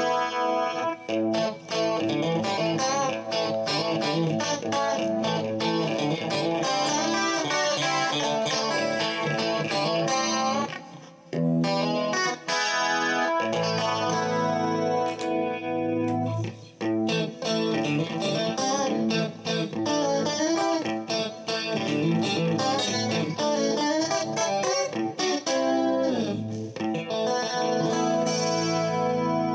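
Polish-made Stratocaster-style electric guitar played on a clean tone, a steady flow of picked notes and chords with a brief break about eleven seconds in.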